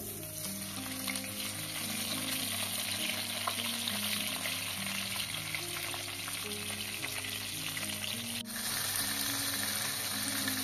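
Halved tomatoes sizzling loudly as they hit hot fat in a frying pan, a dense crackling hiss that starts suddenly and keeps going, with a brief dip about two seconds before the end.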